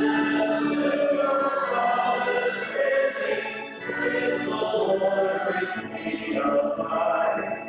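A group of voices singing a slow hymn, holding each note and moving line by line through the verse.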